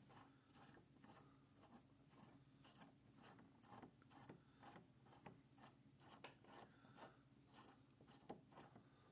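Faint, even ticking of a steel lead screw being spun by hand out of a cast iron X/Y table, about three light ticks a second.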